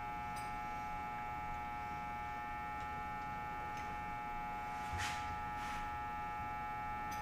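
Steady electrical hum with a few faint, scattered clicks and a couple of soft swishes about five seconds in, as the motorcycle fork and its top cap are handled.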